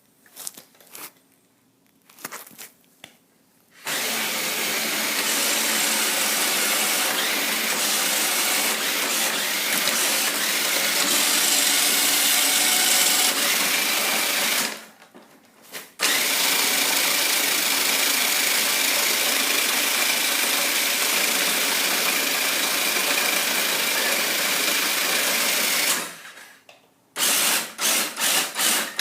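Fast Lane Power Strike toy RC car's electric motor and gearbox whining loudly at full throttle. It makes two long runs of about ten seconds each with a short break between, then a few short bursts of throttle near the end.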